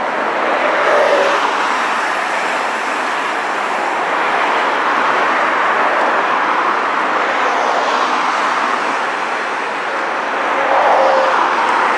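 Road traffic on a multi-lane highway: a steady rush of car tyre and engine noise, swelling slightly as vehicles pass, about a second in and again near the end.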